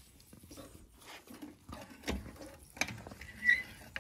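Lug wrench working the wheel bolts of a Mercedes W124's front wheel: faint scattered metal clicks and knocks, a sharper click just under three seconds in, and a brief squeak soon after.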